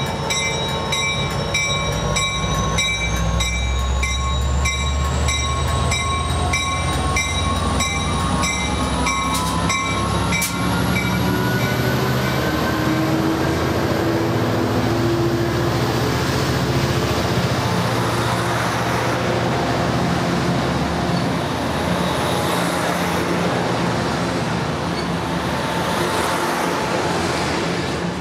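An Amtrak Surfliner train led by an F59PHI diesel locomotive pulls out and passes close by. A bell rings about twice a second and stops about ten seconds in, while the diesel engine runs loud and low and a whine rises in pitch as the train gathers speed. The bilevel passenger cars then roll past with a steady rumble of wheels on rail.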